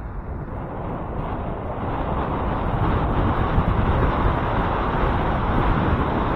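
Wind rushing over the microphone of a bicycle-mounted action camera, mixed with tyre and road noise from riding, growing louder over the first couple of seconds and then holding steady.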